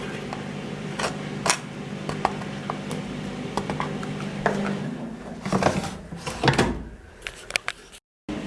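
Clicks and knocks from a Bauknecht WA 9350 washing machine being handled, over a steady low hum. About five seconds in there is a cluster of louder knocks and rustling, then the hum falls away and the sound cuts off suddenly.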